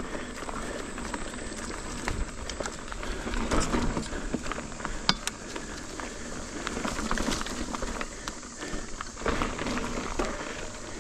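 Ibis Ripley AF mountain bike rolling over a rooty dirt trail: a steady rush of tyre and trail noise full of quick clicks and rattles from the bike, with one sharp knock about five seconds in.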